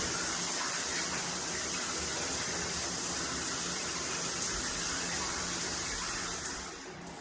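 Water spraying steadily from a multifunction shower system, a steady hiss, that cuts off about seven seconds in as the water is shut off.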